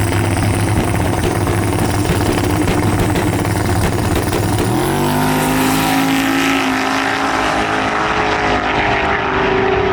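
Race car engines running loud, then climbing in pitch about five seconds in as the engine revs up or accelerates.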